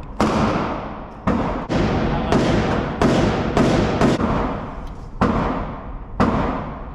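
Gunshots at a firing range, about nine shots at uneven spacing, each ringing out and fading before the next.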